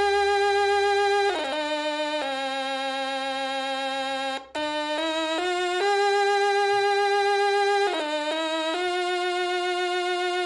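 Stylophone playing a slow melody of long held, buzzy notes joined by quick stepping runs, with a brief break about halfway through.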